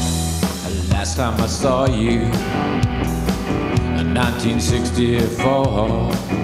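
Rock song in an instrumental passage: drums, bass and guitar, with a wavering lead melody that comes in twice.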